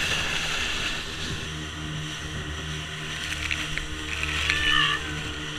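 Motorboat engine running with a steady low hum; a few short, higher chirping sounds come in near the end.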